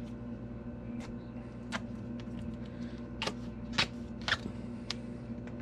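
Gorilla tape being pulled from the roll and handled: about six short, sharp ripping crackles, spaced irregularly, the strongest in the second half.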